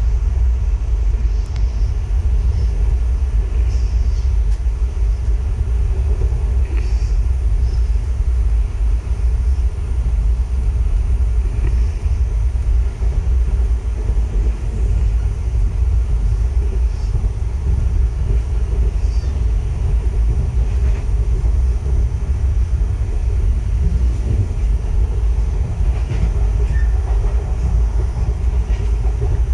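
Passenger train running along the track: a steady low rumble of wheels on rail, with faint clicks now and then.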